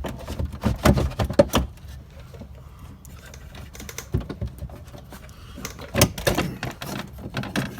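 Clicks, knocks and rattles from hands working on the glass and loose regulator parts inside an open car door, in two clusters: about a second in and again around six seconds in.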